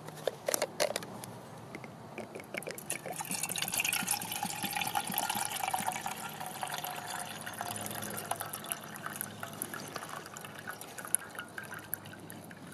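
Water poured from a canteen into a metal mess tin, a steady splashing fill that starts about three seconds in and keeps going. A few sharp clicks come before it.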